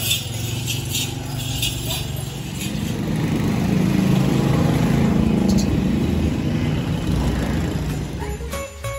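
Motor vehicle engine running close by in the street, growing louder through the middle and fading again, over general street noise. Music with jingling bells starts near the end.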